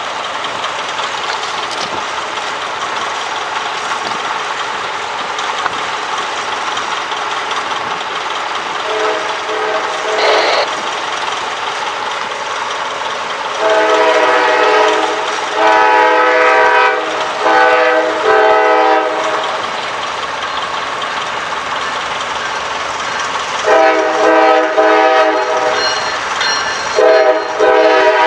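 Multi-chime air horn of a Norfolk Southern GE C40-9W diesel locomotive. It gives one blast about nine seconds in, then the long-long-short-long grade-crossing signal, then two more long blasts near the end. Under the horn runs the steady rumble of the approaching intermodal train.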